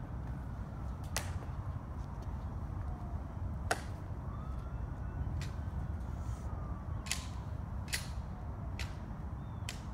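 Sharp, widely spaced clicks and snaps, about six in ten seconds, from honor guards' metal-tapped heels and rifles being handled, over a steady low rumble.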